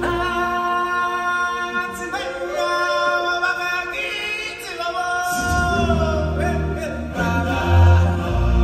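Show music with voices singing long held notes in a choir-like chant. Deep drums and bass are absent at first and come back in about five seconds in, with a loud low beat near the end.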